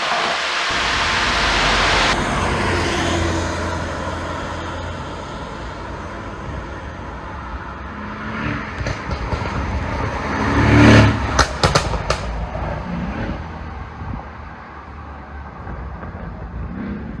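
Mercedes-AMG SL63's twin-turbo V8 running with a low drone, swelling about two-thirds of the way in into a quick run of sharp exhaust pops and crackles from its pop-tuned ECU map, then fading away.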